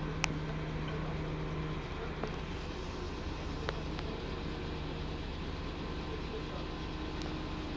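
Jelcz 120M/3 city bus's WSK Mielec 11/300/1 diesel engine running, heard inside the bus near the front, a steady drone whose hum drops back about two seconds in. A sharp click comes just after the start, and a smaller one about halfway through.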